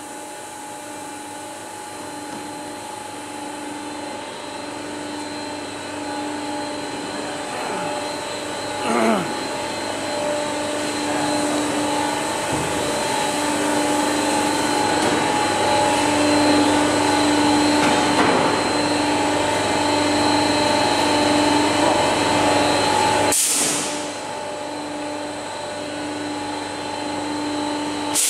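Machinery of a PUR-glue honeycomb door panel laminating line running: a steady hum with several held tones, one pulsing on and off about once a second, under a hiss that grows louder. There is a short louder burst about nine seconds in, and a sharp click about 23 seconds in after which the noise drops.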